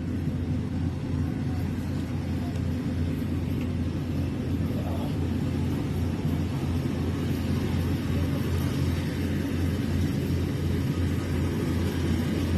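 Rice harvester's engine running steadily with a low, even drone.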